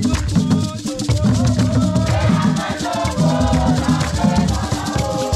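Traditional Ghanaian drum ensemble playing a fast, dense rhythm on tall barrel drums, with a shaker rattle running through it. Group singing comes in about two seconds in.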